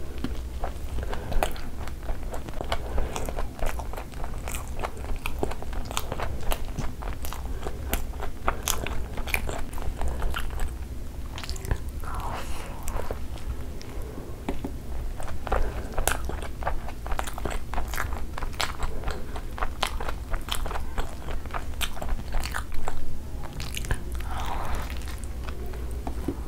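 Close-miked biting and chewing of a chicken shawarma wrap: a steady run of small crunches and wet mouth clicks, over a steady low hum.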